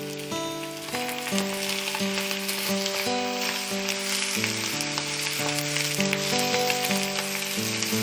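Food sizzling as it fries in a pan, over background music with a simple melody of notes changing about twice a second.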